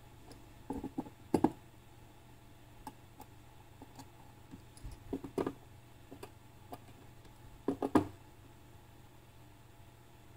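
Small screwdriver turning the trimmer potentiometers for the emitter and collector resistors on a hand-built transistor amplifier board. Light clicks and taps come in three short clusters, about one, five and eight seconds in, over a faint steady low hum.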